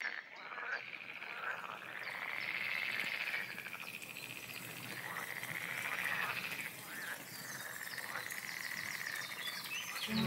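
Frogs calling in a chorus: long pulsing trills that swell and fade one after another.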